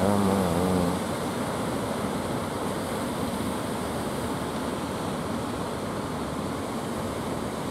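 Ocean surf breaking and washing on the shore, a steady rushing noise, with a brief pitched sound in the first second.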